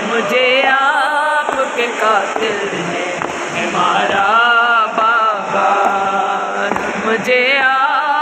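Men chanting an Urdu noha, a Shia mourning lament, led by one male voice singing long, wavering, drawn-out lines.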